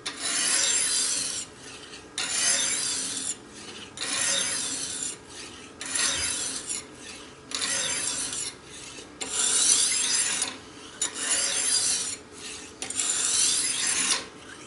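Steel kitchen-knife blade stroked across a wet sharpening stone, eight even gritty scrapes of about a second each. This is the grinding that raises a burr along the edge.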